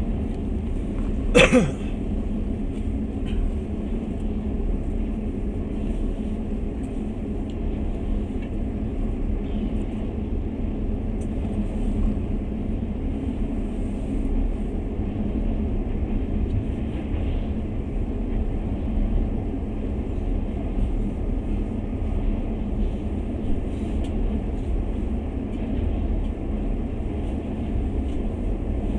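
Train running at speed across a truss bridge, a steady low rumble of wheels on rails. About a second and a half in, a brief loud sound falls sharply in pitch.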